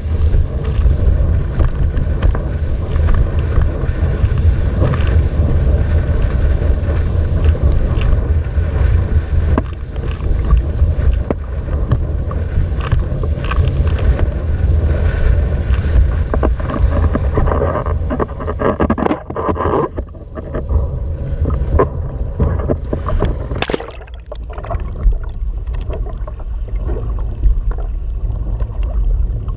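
Wind buffeting the microphone and water rushing past a windsurf board under sail, a loud, steady rush. About three-quarters of the way through, the sound turns muffled as the microphone goes under water.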